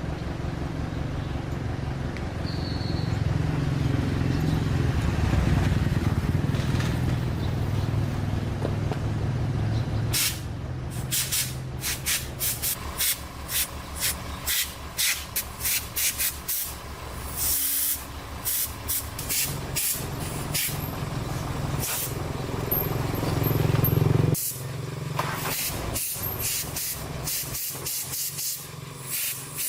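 A motor running with a low, uneven pulse for about ten seconds, then a long run of short hissing bursts, several a second.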